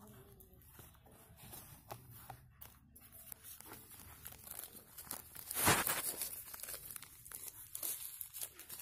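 Hands working potting soil into a cut plastic jug: scattered soft rustling and crackling of soil and plastic, with one louder crinkling rustle about halfway through.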